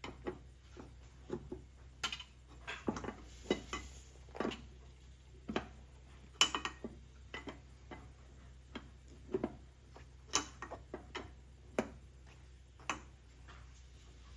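Irregular sharp metal clicks and knocks from hand tools working the wheel's lug nuts, about one or two a second, some louder than others.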